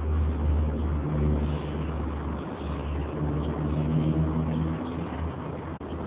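Loud, steady low mechanical rumble with a deep droning hum and a fainter, wavering pitched drone above it, like heavy engine or traffic noise.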